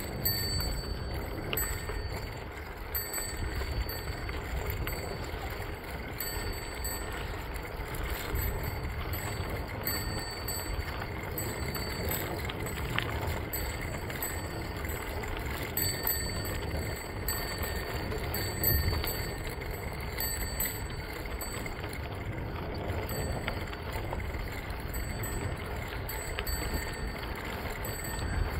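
Bicycle rolling along a packed gravel trail: a steady rumble of tyres on gravel and wind on the microphone. Faint high-pitched tones come and go throughout.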